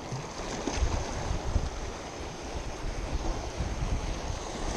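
Wind buffeting the microphone in uneven low gusts over a steady wash of water.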